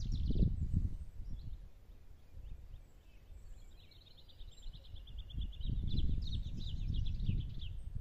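Wind buffeting the microphone in gusts, loudest near the start and again in the second half. A small songbird sings over it: a fast, even trill through the middle, then quicker, higher notes near the end.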